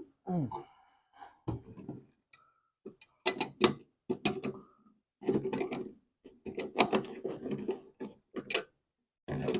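Irregular scraping, rubbing and knocking of pliers and metal parts on a kerosene heater while tight fasteners are worked loose, in short bursts with gaps between.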